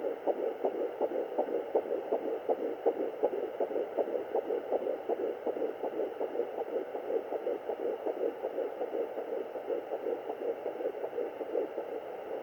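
Handheld fetal doppler picking up a fetal heartbeat at 10 weeks 6 days: fast, evenly repeating whooshing beats over a steady hiss.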